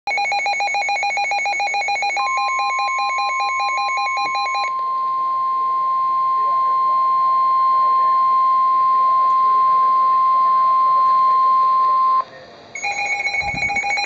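Weather alert radio sounding a Special Marine Warning alert: a fast warbling beep, joined about two seconds in by the steady single-pitch weather service warning tone, which holds for about ten seconds and cuts off. After a brief pause the fast warbling beep starts again near the end.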